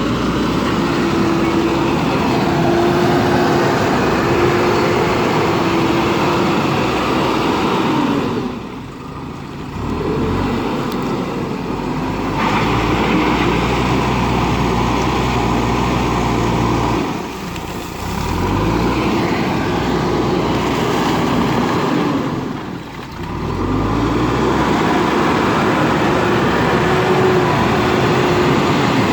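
JCB backhoe loader's diesel engine working hard. It eases off briefly three times, its pitch dropping, then revs back up.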